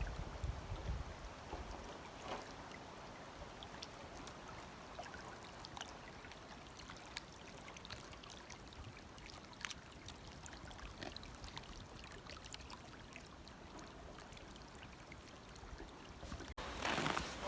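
Faint, steady rush of water running through a partly frozen waterfall, with a few small scattered clicks.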